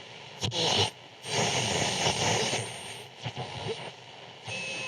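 Radio being tuned across the dial: bursts of static hiss swell and drop away several times, and a thin steady whistle rides on the noise near the end.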